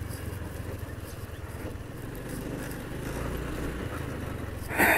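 Scooter engine running at a steady cruise with tyre noise on a rough dirt track, heard from the rider's position. A brief louder rush of noise comes near the end.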